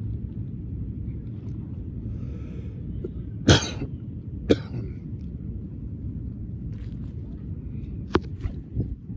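Steady low outdoor rumble, broken by a few short, sharp noises: a loud one about three and a half seconds in, another a second later, and a few more near the end.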